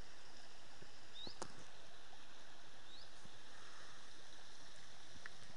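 Steady rush of a small stream running through grass. A bird chirps twice with a short rising note.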